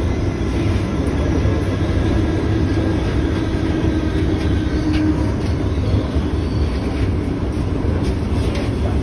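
Cairo Metro Line 1 Alstom 1981-stock (5700 series) train in motion, heard from inside the passenger car: a steady, loud rumble of wheels on rail with light clatter. A faint humming tone runs through the middle and fades about five seconds in.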